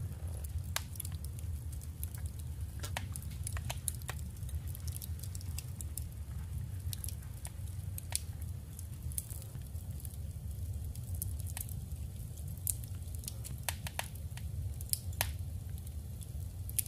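Paper and journaling supplies being handled: scattered crisp clicks, taps and small rustles over a steady low hum.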